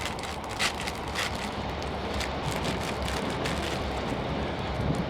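Wood campfire crackling with scattered sharp pops, over a steady rush and low rumble of wind on the microphone.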